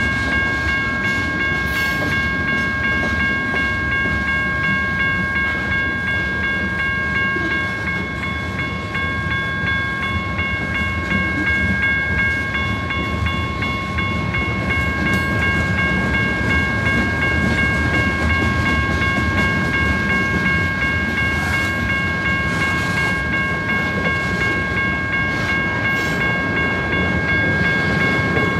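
Freight train cars rolling past close by, a continuous heavy rumble of wheels on rail: lumber-loaded flatcars, then tank cars. A steady high ringing tone of several pitches sounds over the rumble throughout.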